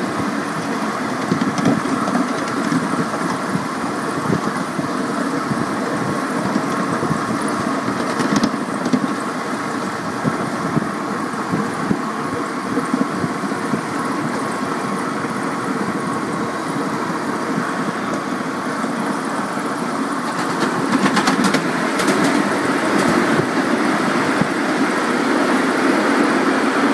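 Ride-on 7¼-inch gauge model SD40-2 diesel locomotive running along the track, a steady motor and wheels-on-rail noise. About 21 seconds in it grows louder with a run of sharp clicks as the train rolls onto the bridge.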